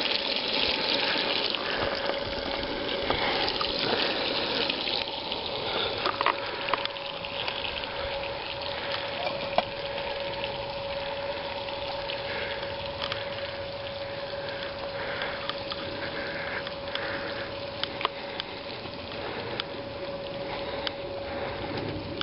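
Sausages and bacon sizzling in a frying pan on a portable gas camping stove: a steady hiss with scattered sharp pops and a faint steady tone underneath.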